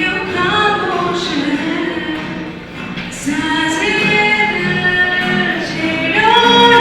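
A group of singers singing a song together, with long held notes.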